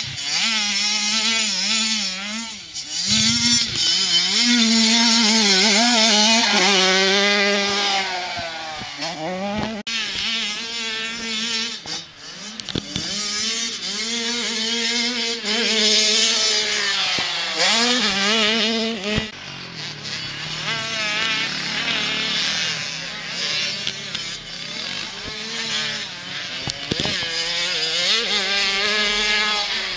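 Small youth motocross dirt bike engine revving, its pitch climbing and dropping again and again as the rider works the throttle and shifts through the gears. It is a little quieter for a stretch about two-thirds of the way through.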